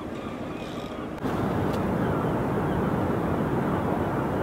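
Open-air seaside ambience: a steady rush of wind and sea noise that jumps louder about a second in, with faint bird calls before that.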